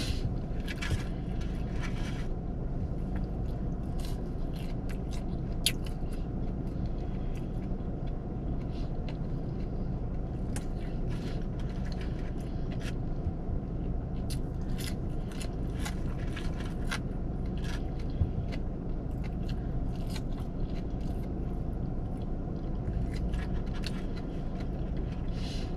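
Close-up eating sounds of someone chewing French fries: scattered small crunches, mouth clicks and scraping, over a steady low hum.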